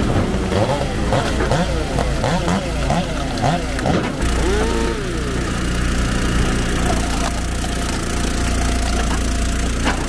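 Engine of an Eastonmade 12-22 log splitter running steadily, with shifting, sliding higher tones over the first few seconds and a single sharp knock near the end.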